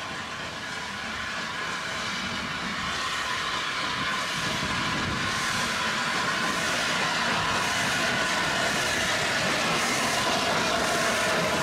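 Steam train double-headed by two 0-6-0 saddle tank locomotives running on the line, growing steadily louder as it approaches.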